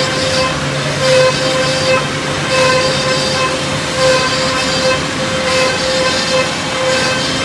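CNC three-head mortising machine cutting mortises in wood workpieces, its spindles giving a steady high whine that swells and drops back in a run of short cutting passes.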